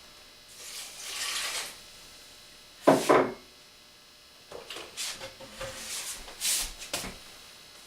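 Kitchen handling noises: a soft scrape, then one loud clatter about three seconds in, followed by a run of lighter scrapes and knocks.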